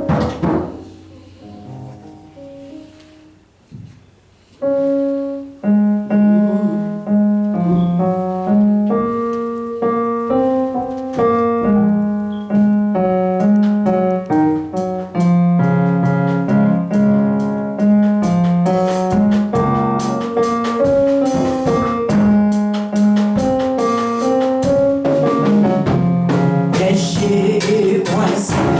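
Church keyboard playing a hymn introduction, softly at first and then fuller with melody and bass from about five seconds in. Percussion comes in near the end.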